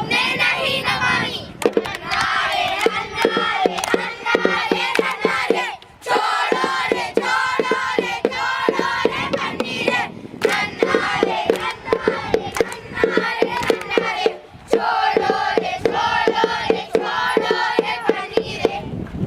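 A group of children chanting in unison, in phrases of about four seconds, over a fast, steady percussive beat.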